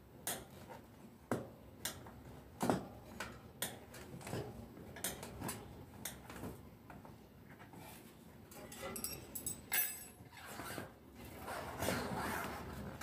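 Hands and a tyre lever working a mountain-bike tyre off its rim: scattered sharp clicks and knocks with rubber and metal scraping, and a denser run of rubbing and scraping near the end.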